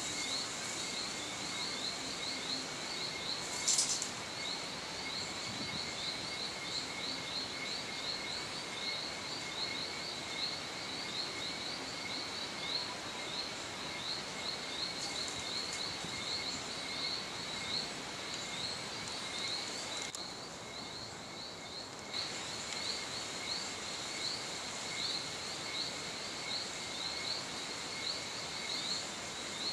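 Evening chorus of insects: many rapid high chirps over a steady high trill, continuous, with a brief lull about two-thirds of the way through.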